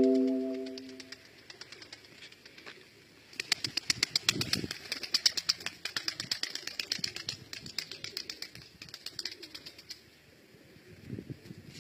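Tumbler pigeon's wings flapping: a long, rapid run of fine clicks starting about three seconds in and stopping near the end. It opens with a short, loud, low steady tone that fades within about a second.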